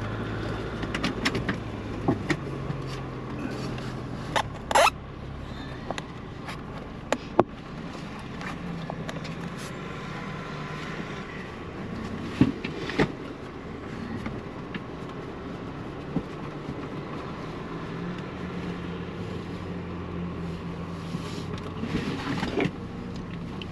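Ford Bronco crawling along an off-road trail: the engine runs steadily at low speed while the body and running gear give off scattered sharp clicks and knocks, the loudest about five seconds in and a cluster near the end.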